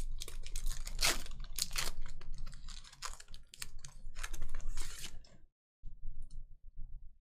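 Foil wrapper of a 2020 Panini Contenders Football card pack being torn open and crinkled by hand: a dense run of sharp crackles and rustles that dies away about five and a half seconds in, leaving a few faint clicks as the cards are handled.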